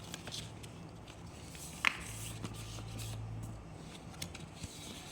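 Rustling and small clicks of a smartphone's retail box and packaging being handled and opened, with one brief squeak about two seconds in and a low hum for about a second and a half in the middle.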